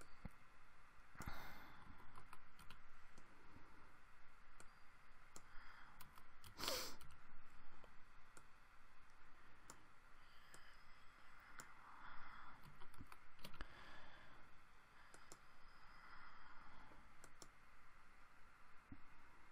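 Faint computer keyboard typing and mouse clicks: scattered keystrokes with pauses, as code is edited and run. One louder, breath-like noise about seven seconds in.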